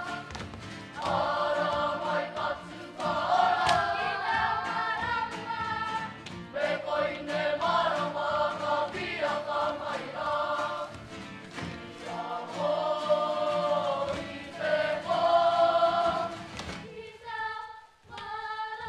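Māori kapa haka group of boys and girls singing a waiata together in phrases, accompanied by acoustic guitars. The singing breaks off near the end.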